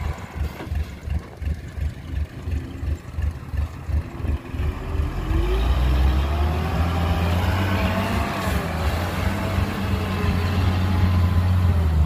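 Loaded dump truck's diesel engine pulling hard. At first it gives a low, uneven throbbing. About five seconds in the pitch rises as it revs up, and it then runs loud and steady under load.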